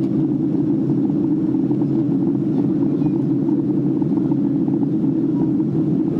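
Steady low drone of engines and rushing air inside the cabin of a twin-engine Boeing 767 in flight.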